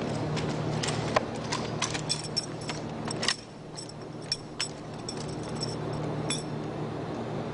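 Drill rifles being handled in a drill team's manual of arms: a run of sharp, irregular clicks and slaps of hands and metal fittings on the rifles, thick in the first few seconds, then a single click near the end, over a steady low hum.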